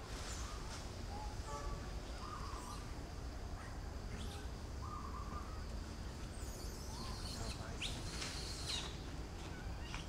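Outdoor ambience: birds chirping here and there, with a cluster of higher calls near the end, over a steady low rumble.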